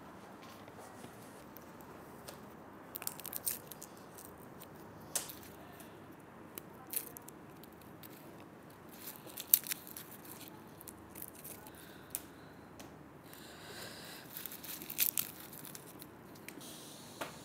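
Scattered light clicks and taps of kitchen handling, with one sharper click about halfway through and a brief cluster near the end.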